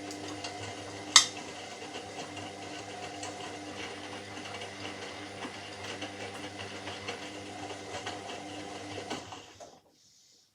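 Washing machine running steadily with a low motor hum and light mechanical rattle, a sharp click about a second in. It stops abruptly near the end.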